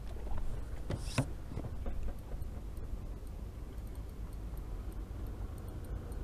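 Steady low outdoor rumble of wind and water on a head-mounted camera's microphone. A few short handling knocks and rustles come about a second in, and faint light ticks follow.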